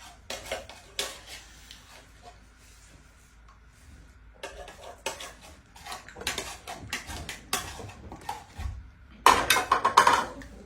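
Spoons clinking and scraping against bowls and plates as food is eaten, in short irregular clatters, with a louder burst of clatter about nine seconds in.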